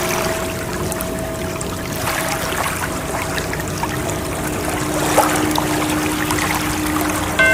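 Rushing, splashing water with fine crackling droplets, over faint steady sustained tones. A bell-like chime with several pitches rings in near the end.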